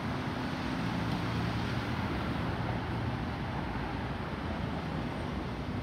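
Steady jet rumble from an Airbus A320neo's two CFM LEAP-1A turbofans as the airliner flies over at height.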